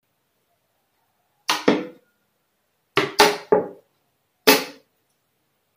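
A series of short, sharp percussive hits, each dying away quickly: a pair, then three in quick succession, then a single one, then another at the very end, with silence between them.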